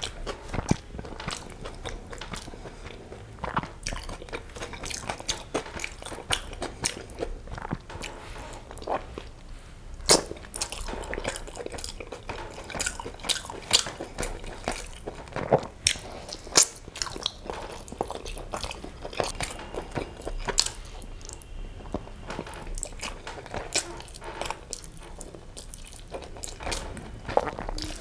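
Close-miked chewing and biting of biryani rice and chicken curry eaten by hand, with many irregular sharp mouth clicks and smacks.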